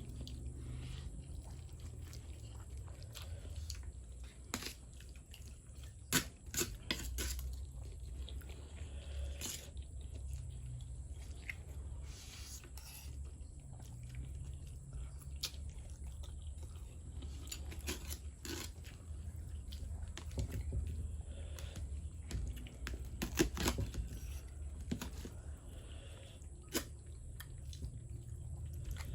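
Close-up chewing and mouth sounds of someone eating fried noodles, with scattered sharp clicks and smacks throughout.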